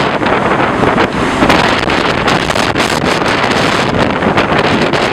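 Loud, steady rush of hurricane wind buffeting the microphone, with rumbling low noise and many brief gusty crackles.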